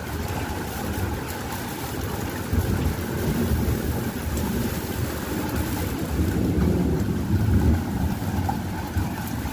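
Heavy rain pouring steadily, with rainwater overflowing and splashing. Wind buffets the microphone in uneven low gusts, strongest a little past halfway.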